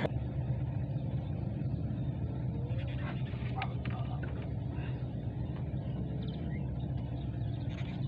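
An engine running steadily, a low, even drone that holds throughout.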